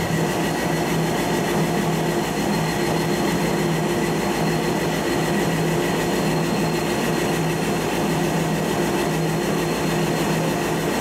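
Type 10 main battle tank on the move: its V8 diesel engine running steadily over the clatter of its tracks, with a faint steady high whine.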